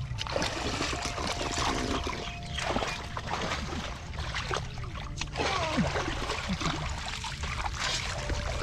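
Shallow muddy water splashing and sloshing in irregular strokes, with trickling between them.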